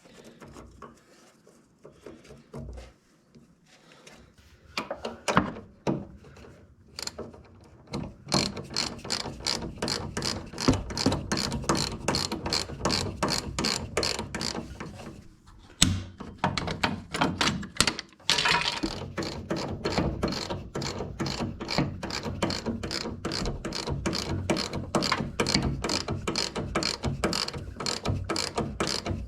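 Hand socket ratchet clicking in quick, steady strokes of about five clicks a second, with a short pause partway through. A few scattered knocks and clinks of tools come first.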